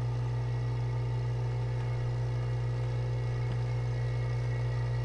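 Vacuum pump running with a steady low hum, pumping air out of the chamber.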